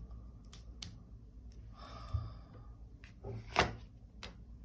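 Quiet handling of tarot cards on a table: a few light clicks and a short soft rustle, with one sharper tap about three and a half seconds in.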